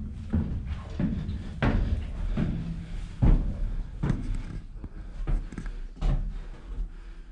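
Footsteps and knocks on the wooden plank floor of a fire-tower cab, about one a second, the loudest a little over three seconds in, over a steady low rumble.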